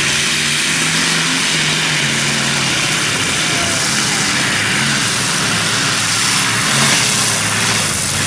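Modified pulling tractor's engines running loud and steady, with a dense roar and a slightly wavering pitch.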